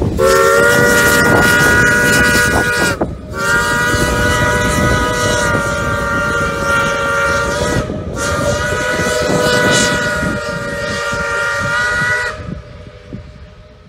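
Chime steam whistle of a passing steam locomotive sounding three long blasts with short breaks, several tones at once, over the rumble of the train; the third blast cuts off near the end.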